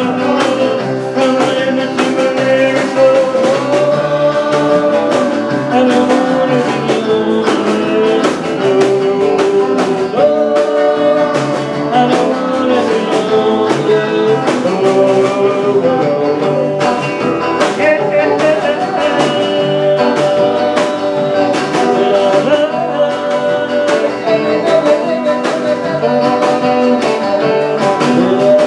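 Live band playing a country-rock song: electric guitars and drums with a man singing.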